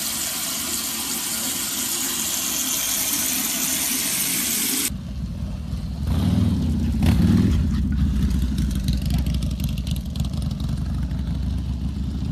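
A steady hiss that cuts off suddenly about five seconds in, giving way to a low, steady motor-like rumble.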